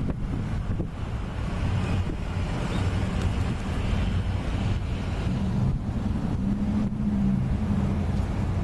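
Steady low rumble of a vehicle engine running nearby, with wind buffeting the microphone.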